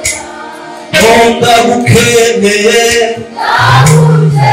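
Gospel worship singing: a man's voice leads into a microphone with a group of singers. It is quieter for the first second, then loud, with a brief dip a little past three seconds.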